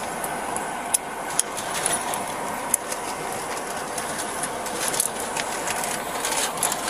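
Steady running noise of an idling vehicle, with scattered small clicks and rustles of things being handled.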